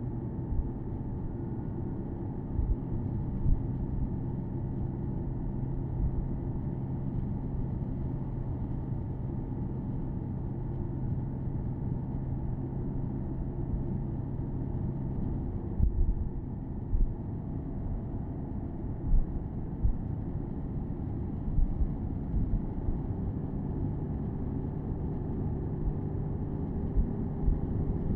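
Porsche Boxster S 987.2's 3.4-litre flat-six cruising steadily, heard from the cabin with the top down, over a low road and wind rumble with occasional low thumps. The engine note drops away a little after halfway and comes back slightly higher a few seconds before the end.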